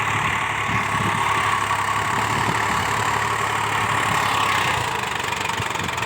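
Indo Farm 2035 tractor's diesel engine running steadily.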